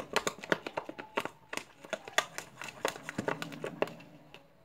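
Quick, irregular crackling and clicking as a paper-and-glue slime mixture is stirred in its container; the crackles thin out near the end.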